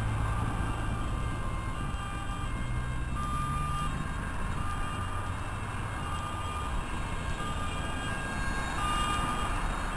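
Road traffic passing, with the low engine drone of a vehicle going by that fades out about four seconds in. Over it, an approaching ambulance's two-tone siren sounds faintly, its alternating notes growing a little louder near the end.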